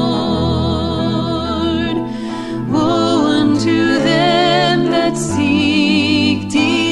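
Christian song: a voice sings long held notes with vibrato over instrumental accompaniment and a steady bass. The singing pauses briefly about two seconds in, and a new phrase starts about a second later.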